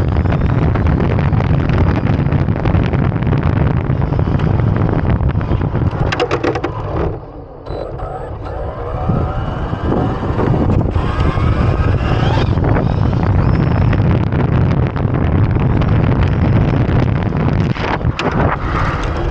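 Wind rumbling on the microphone over a Losi F100 electric RC drag truck driving, its motor whining up in pitch several times about halfway through as it accelerates.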